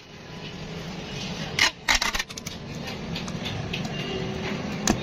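Packing tape worked off its roll and pressed onto a cardboard box: a short ripping burst about a second and a half in, then a quick cluster of crackles and taps, with a few lighter ticks after. A steady low rumble runs underneath.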